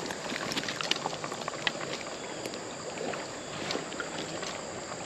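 Shallow creek water running steadily, with scattered small splashes and clicks close by as the netted trout stirs in the water.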